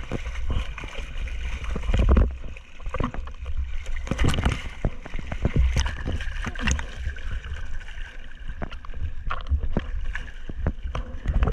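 Sea water rushing and splashing over a surfboard and the action camera mounted on its deck as the board moves through waves, with a deep rumble and many short splashes throughout.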